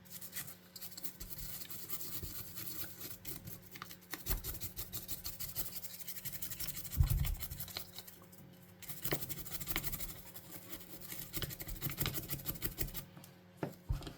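Toothbrush bristles scrubbing a plastic game-controller part clean, in quick scratchy strokes that pause briefly partway through, with one low knock about seven seconds in.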